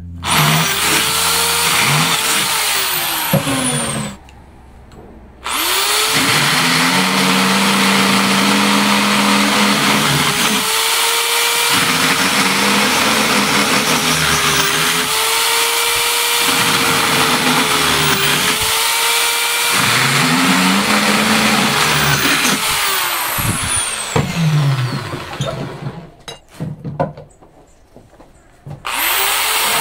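Corded electric drill boring holes in a metal guitar-pedal enclosure held in a vise. The motor runs briefly, stops about four seconds in, then runs for about twenty seconds, its pitch dipping and coming back up again and again as the bit bites. It stops with a few clicks near the end and starts up again just before the end.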